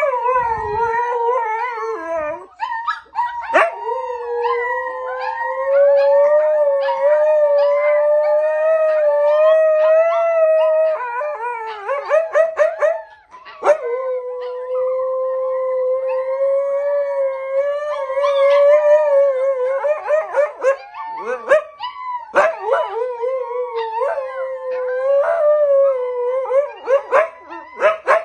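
Dog howling in long, held notes lasting several seconds each, broken by bursts of short yips and barks around the middle and again near the end.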